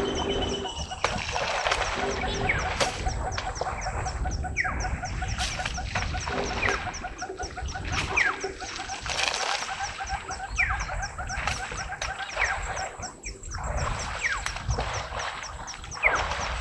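Several birds calling together in the bush: rapid repeated high chirps, scattered sliding whistles and a steady pulsed call, over a low background noise.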